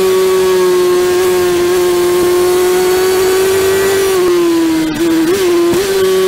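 Honda CBR600F inline-four engine running hard at high revs on track, with wind rush over an onboard camera. The engine note holds steady and sags slightly as the bike slows, then wavers briefly about five seconds in.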